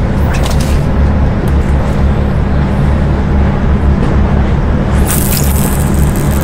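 Wind buffeting the microphone: a loud, steady, fluttering rumble, with hissing gusts about half a second in and again about five seconds in.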